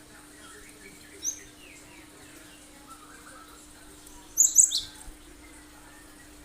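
Cinereous tit (gelatik batu) giving sharp, high 'tembakan' call notes: one short note about a second in, then a loud quick burst of several notes a little past the middle, over faint softer chirping.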